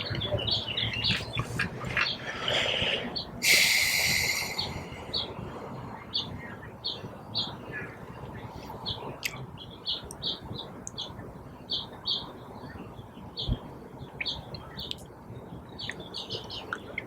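A bird chirping over and over, short high chirps about two a second. A few seconds in, a loud hiss lasting about a second.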